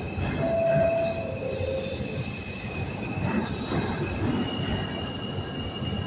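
Subway train running with a steady low rumble and a thin, high metallic wheel squeal held throughout; the squeal steps up a little in pitch about four seconds in.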